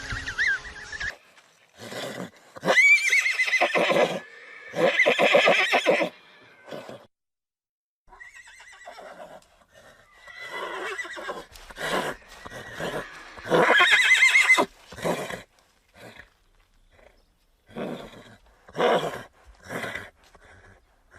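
Horses neighing, a series of separate loud whinnies with quavering high pitch and short gaps between them.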